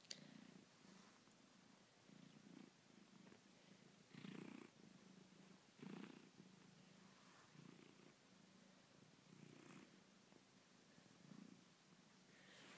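A cat purring faintly as it kneads and suckles a fleece robe, the purr swelling and fading about once a second with its breathing. This is nursing-style comfort behaviour in a cat weaned too early.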